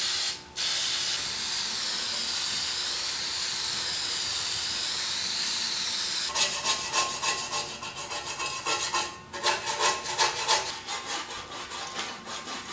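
An aerosol can of aircraft paint remover spraying in a steady hiss, with a short break about half a second in, cutting off about six seconds in. Quick, uneven scraping and scrubbing strokes follow, as the softened paint is worked off the truck's metal.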